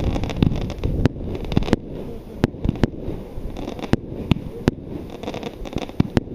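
Mars Pyrotechnics B-52 52-shot firework cake firing its shots one after another, sharp bangs at uneven spacing, about two a second. Strong wind buffets the microphone with a steady low rumble underneath.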